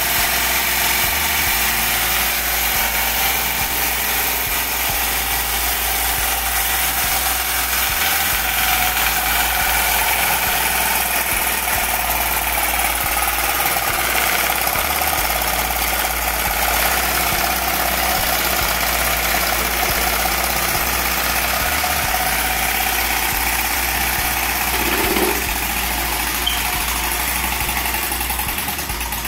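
Homemade tin-can Stirling engine running at high speed: a steady mechanical whir with a constant hum in it.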